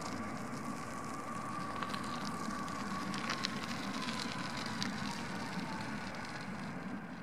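Airbus A330 jet engines at touchdown and rollout, heard from a distance: a steady rumble with a high engine whine that sinks slightly in pitch and fades out about five seconds in, with scattered crackles over it.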